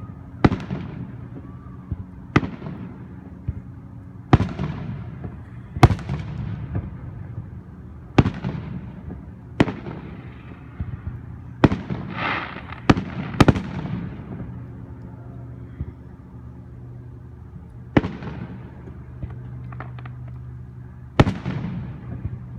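Aerial fireworks going off: about a dozen sharp booms, each followed by a fading echo, with a pause of a few seconds after the middle.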